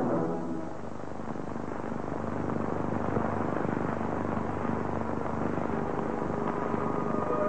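Several horses galloping: a dense, steady rumble of hoofbeats that builds over the first couple of seconds.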